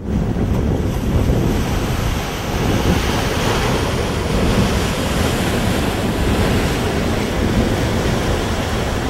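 Waves washing against shoreline rocks, with wind buffeting the microphone: a steady, loud rushing noise.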